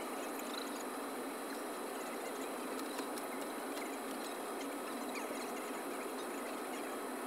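Steady hissing cabin noise inside a parked Boeing 747, with faint crackling ticks scattered through it.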